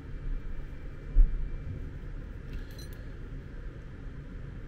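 Handling noise at a workbench: a low, steady rumble with one sharp thump about a second in and a faint click a little later, as multimeter test leads and a cable connector are picked up and moved over a rubber mat.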